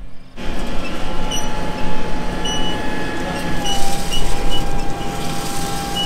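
Heavy harvest machinery running steadily: a loud rumble with a constant whine over it, cutting in abruptly just after the start.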